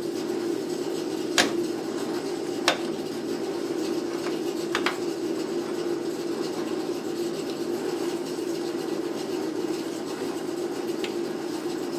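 Metal brake hardware and hand tools clinking while drum brake shoes and their clips are being fitted: three sharp clinks in the first five seconds, then quieter handling. A steady hum runs underneath.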